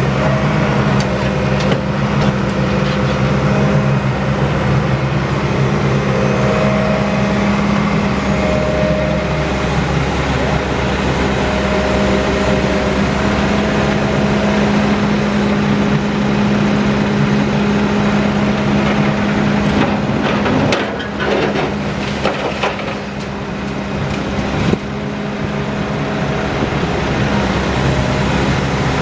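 Heavy diesel engines running steadily, from a Deere 120C excavator loading a Sterling dump truck with broken concrete. About twenty seconds in the engine note eases and there is a brief clatter, then a single sharp knock, of concrete striking the steel dump body.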